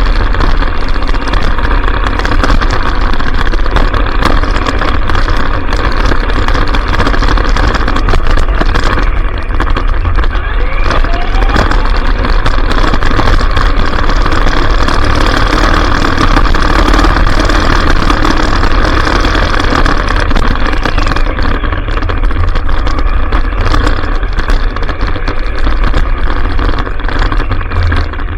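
Traxxas Stampede RC truck driving, heard from a camera mounted on its own bed: steady loud motor and drivetrain noise with tyre and rumble noise, and a brief rising whine a little past a third of the way in.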